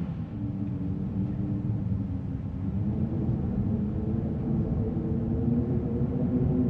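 Wind blowing with a low rumble and a wavering drawn-out tone, getting a little louder about three seconds in.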